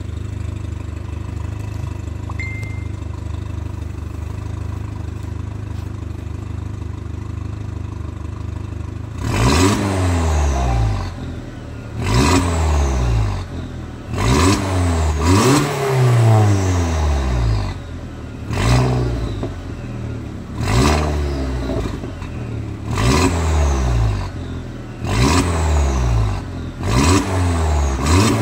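Skoda Octavia I's 1.8T 20-valve turbocharged four-cylinder (AUM, 150 hp) through an aftermarket RM Motors downpipe, with the centre muffler cut out and only the rear silencer left. It idles steadily for about nine seconds, then is revved in quick blips about every two seconds, each rising sharply and falling back towards idle.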